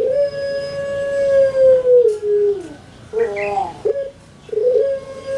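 Caged Barbary dove (puter) giving its long drawn-out coo: a steady held note of about two and a half seconds that drops in two steps at the end. It is followed a little after three seconds by a short burst of wavering coo notes, and near the end by the start of the next long coo.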